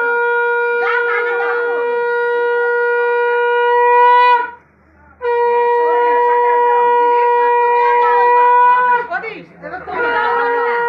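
Conch shell (shankh) blown as part of a Hindu ritual, in long steady blasts of about four seconds each, with short breaks for breath and a slight lift in pitch as each blast ends. Voices chatter faintly underneath.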